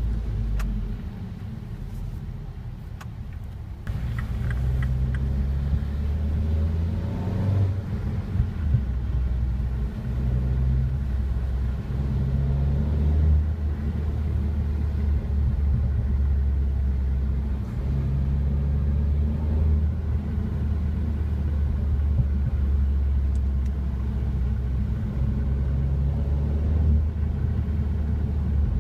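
2016 Mini Countryman S's turbocharged four-cylinder with a sport exhaust, driving with a deep, steady exhaust rumble whose revs rise and fall. It gets louder about four seconds in, and a few short sharp cracks come in the first nine seconds or so.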